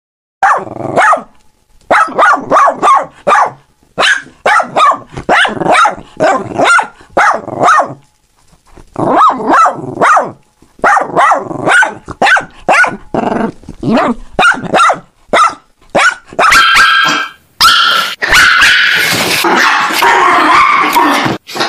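Dogs barking in quick runs of short, sharp barks, several a second, with brief pauses between runs. A rougher, hissier sound takes over for the last few seconds.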